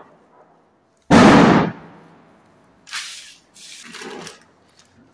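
A single loud bang about a second in that dies away over about a second, followed by two softer rustling noises.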